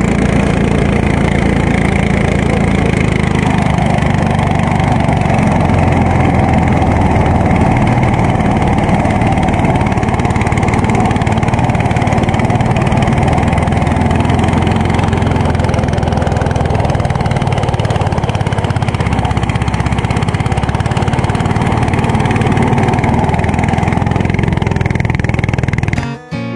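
Engine-driven rice thresher running steadily under load as rice stalks are fed into its spinning threshing drum. About 26 seconds in, the machine sound cuts off and guitar music begins.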